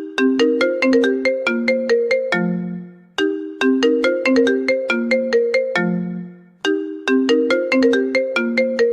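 Apple iPhone ringtone playing: a short melody of quick struck, bell-like notes that repeats about every three and a half seconds, each time ending on a lower note that dies away.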